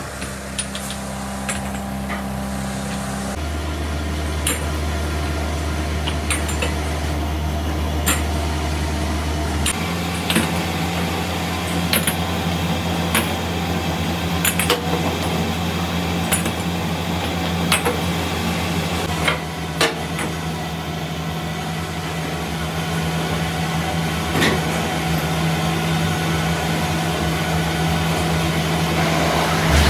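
Steady hum of workshop machinery, its pitch shifting twice, with sharp metallic clinks and knocks every second or two from rough cast-iron brake-cylinder castings.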